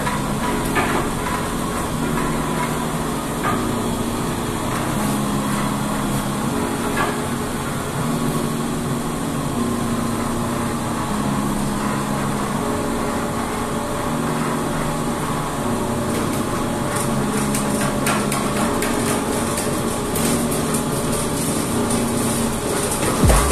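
Twin-arm dough kneading machine running, its arms churning a batch of flour dough in a steel bowl: a steady mechanical noise with occasional knocks.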